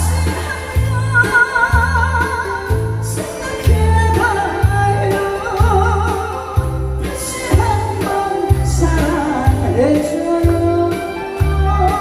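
A song with a woman singing a wavering melody over a steady bass beat.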